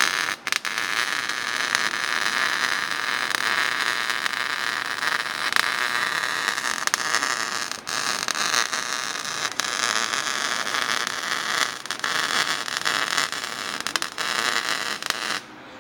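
Welding arc crackling and hissing steadily as a section of exhaust pipe is butt-welded back together, with a few brief breaks in the bead. It stops just before the end.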